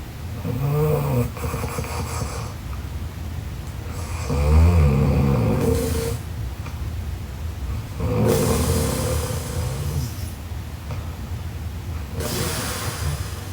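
A young woman snoring in her sleep: four pitched, rasping snores, about one every four seconds, each followed by a breathy exhale. The second snore is the loudest.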